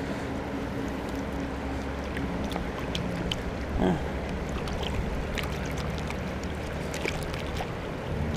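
Shallow creek water rushing and splashing around a gold pan held in the current while rocks are scrubbed clean by hand, with scattered small clicks as the rocks knock together.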